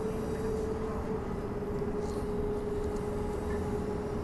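Bombardier B-series electric multiple unit running at steady speed, heard from inside the carriage: a continuous rumble with a constant hum.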